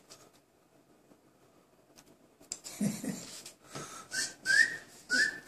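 Short, breathy whistles from a person, three quick rising chirps in the second half, with air hiss around them.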